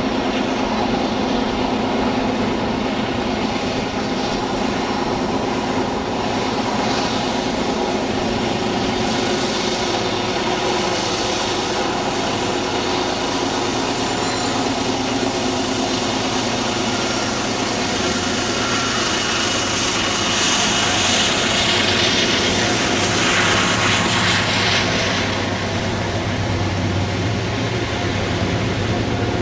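Diesel-electric freight locomotive engines working at high throttle, a steady heavy drone, with a hissing rush that grows louder about twenty seconds in and eases off about five seconds later.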